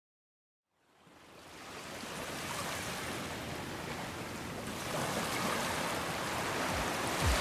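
Steady hiss of falling rain, fading in about a second in and then holding even. A low thud sounds near the end.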